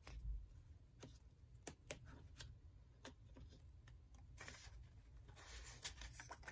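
Near silence, with scattered faint light clicks and a soft brushing rustle of paper index cards being handled.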